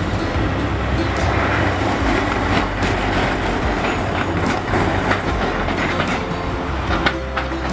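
Hiroshima Electric Railway tram no. 1006, a low-floor Green Mover LEX, passing slowly, its wheels clicking over the rail joints over a steady low hum, with street traffic going by.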